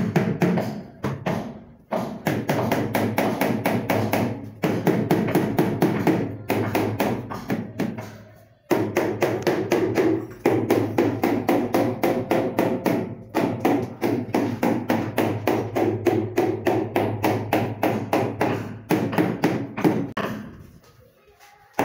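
Rubber mallet tapping quickly on a large ceramic wall tile, about five taps a second in runs with short pauses, bedding the tile into its adhesive. The tapping dies away near the end.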